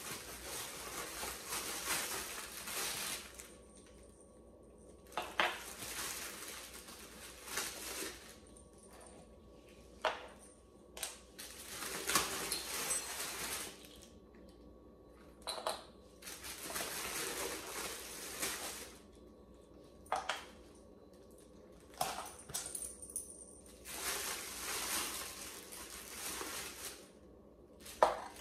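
A plastic parts bag crinkling in repeated bursts as it is handled, with sharp clicks and clinks of small plastic knobs and bolts for a Sun Joe electric mower's handle being taken out and set down on a hard floor.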